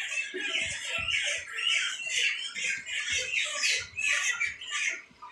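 A flock of broiler chickens calling continuously, many high-pitched cheeps overlapping.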